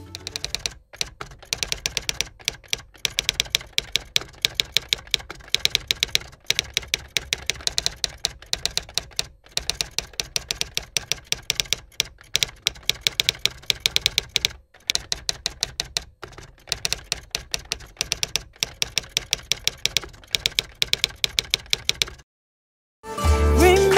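Typewriter keystroke sound effect: rapid, uneven clicking in runs with short pauses, keeping time with the text typing out. It stops abruptly about two seconds before the end; after a moment of silence, music comes in.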